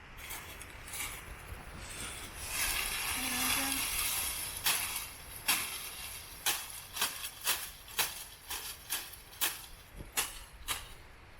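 A brief rustling hiss, then a run of short, sharp knocks or crackles, about two a second.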